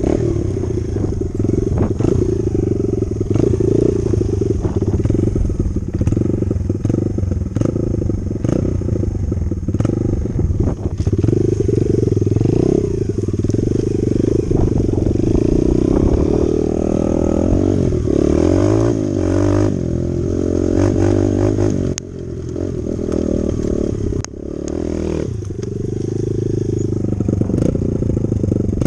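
Dirt bike engine running, its pitch rising and falling with the throttle. The sound drops off briefly twice late on.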